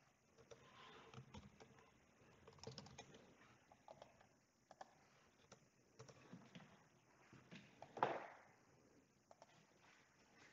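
Faint typing on a computer keyboard: scattered, irregular key clicks, with one louder knock about eight seconds in.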